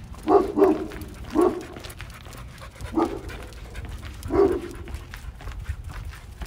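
A dog barking in a few short single barks, spaced a second or more apart.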